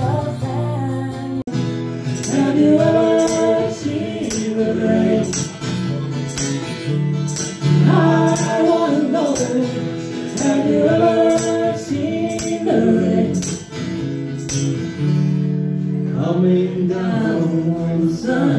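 Live acoustic duo music: a woman singing over a strummed acoustic guitar. A sharp high tick keeps a beat about twice a second and drops out near the end.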